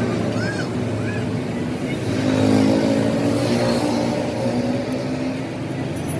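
A motor or engine running steadily with a pitched hum that shifts a little partway through.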